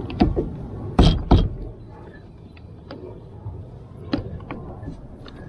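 A series of knocks and thumps: a couple of light knocks near the start, two loud thumps in quick succession about a second in, then a few lighter knocks about four seconds in.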